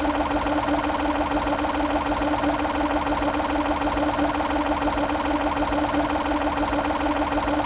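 Old truck engine idling evenly, with a steady hum over a fast, even pulsing.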